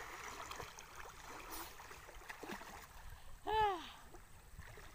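Gentle sloshing and lapping of river water around a person swimming, with small scattered splashes. About three and a half seconds in, a short high call rises and falls; it is the loudest sound.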